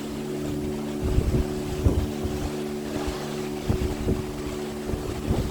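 Wind gusting on the microphone in irregular blasts, over a steady low drone of several held pitches.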